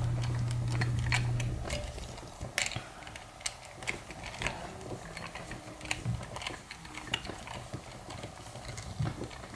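Small hand screwdriver turning screws into a plastic quadcopter canopy and frame, with light irregular clicks and ticks from the bit and handling. A low hum fades out about a second and a half in.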